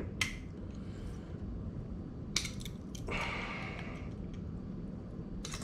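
A few faint, sharp clicks of a die-cast metal bottle opener catching and slipping on a beer bottle cap, with a brief hiss about three seconds in; the opener is bending the cap instead of prying it off.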